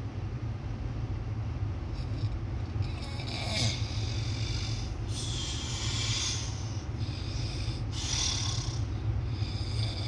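A person asleep in a moving vehicle, snoring with a run of loud, hissy snorting breaths like a horse blowing, one every two to three seconds, over the steady low rumble of the vehicle.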